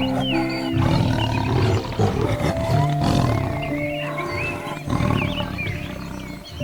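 Soft instrumental music of held piano and guitar notes, mixed with the rough growling roars of a large wild cat and many short, high chirping calls.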